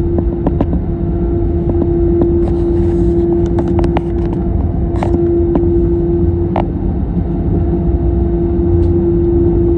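Airbus A321neo's jet engines and airflow heard from inside the cabin: a steady rumble with a constant hum, and a few faint clicks.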